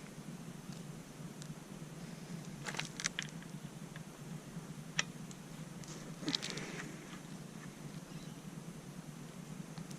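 A few light clicks and rattles of small parts and hardware being handled while fitting a radiator fan assembly: a cluster about three seconds in, a single sharp click at five seconds, and another rattle a little after six seconds, over a steady low hum.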